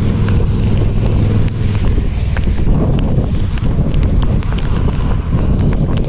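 Strong gusty wind buffeting the phone's microphone in a thunderstorm downpour, a loud steady low rumble that flutters without letup. Scattered sharp ticks run through it.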